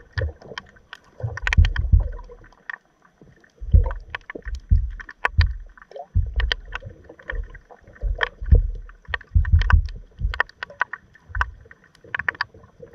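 Water moving around a submerged camera on the seabed: irregular low surges and rumbles with many scattered clicks and crackles.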